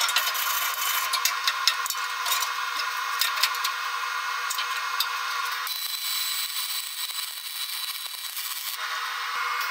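A hand wire brush scrubbing aluminum, scratchy and clicking, with metal pieces being handled and clamped; then, about six seconds in, a MIG welding arc on aluminum hissing steadily for about three seconds before it stops.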